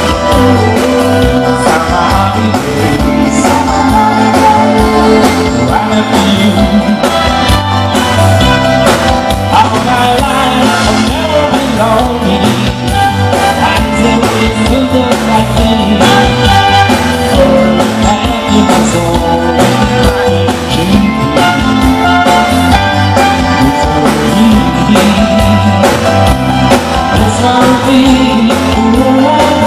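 Live band playing loudly with a steady beat, with singers' vocals over electric guitar and drums.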